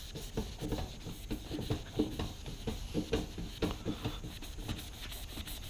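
A wet Mr. Clean Magic Eraser rubbed back and forth on a yellow John Deere riding-mower seat: a run of quick scrubbing strokes, about three or four a second.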